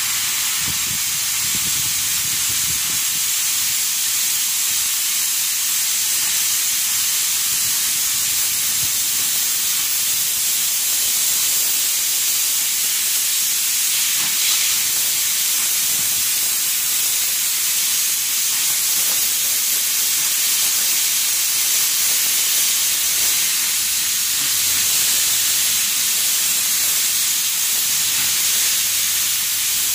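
Electric welding arc hissing steadily and loudly on the steel teeth of a loader bucket.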